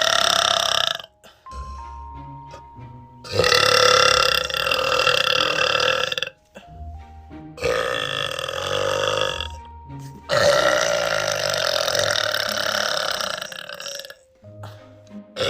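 Young women burping in a run of long, drawn-out belches: one ending about a second in, then three more of roughly three seconds each. Faint background music fills the short gaps between them.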